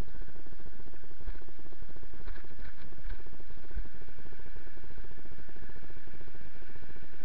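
Steady low rumble and rubbing noise from a body-worn camera carried at a walk, with a constant faint electronic whine. A few soft crackles, like footsteps in snow, come about two to three seconds in.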